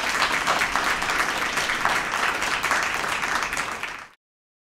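Audience applauding, many hands clapping at once, until the sound cuts off suddenly near the end.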